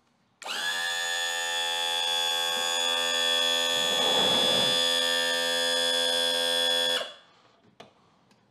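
Mercury 60 hp four-stroke outboard's electric power trim/tilt pump running, a steady high whine as the motor tilts up. It starts about half a second in and cuts off suddenly about seven seconds in.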